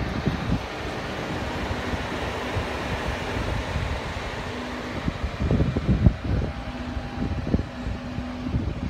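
Steady fan-like mechanical hum with a faint held tone, and wind gusts buffeting the microphone about halfway through.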